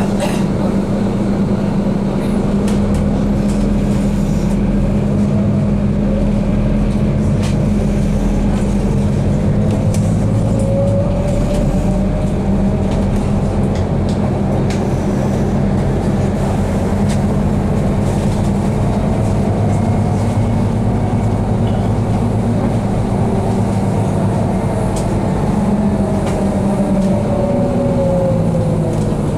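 Inside a city bus on the move: a steady drivetrain hum with road noise, and a faint whine that glides up and down in pitch a few times as the bus changes speed.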